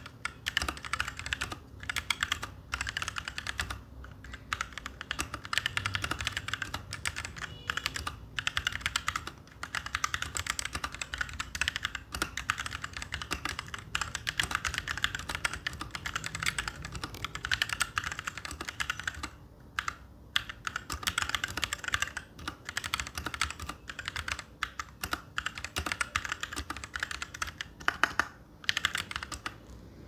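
Fast typing on a Royal Kludge RK61 mechanical keyboard fitted with brown tactile switches: a dense, continuous stream of key clacks. The typing breaks off briefly about two-thirds of the way through and again near the end.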